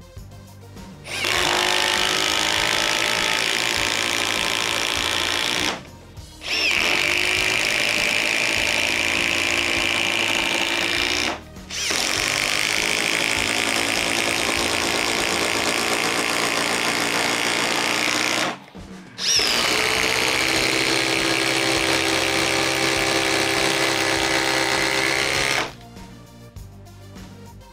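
Cordless impact driver hammering as it drives a fastener, in four runs of about five to six seconds each that start and stop abruptly, over background music.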